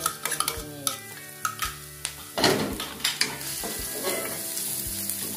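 Chopped shallots and garlic sizzling in oil in a nonstick wok over a low flame. A metal spoon scrapes them off a plastic board into the pan with clicks and taps, and a wooden spatula stirs them; from about halfway through the sizzle settles into a steady hiss.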